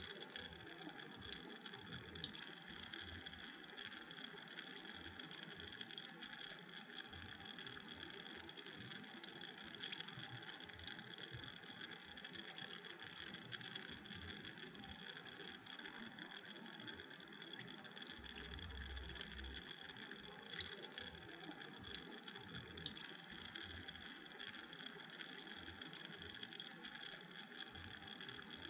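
Carbonated drink fizzing: a steady hiss of countless tiny bubbles bursting, with fine crackles all through.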